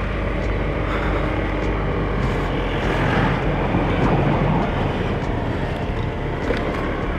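Riding noise on a Honda Grazia 125 cc scooter: a steady rush of wind and road noise over the engine running at cruising speed.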